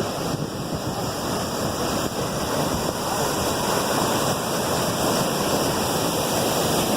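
Ocean surf: a steady rush of breaking waves, growing a little louder over the first few seconds.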